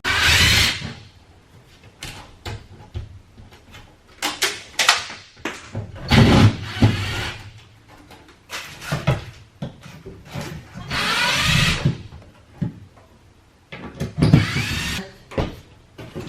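Cordless drill and hand tools working a screwed-on wooden panel board off drywall: several irregular bursts of drill and scraping noise, with knocks and clicks between them.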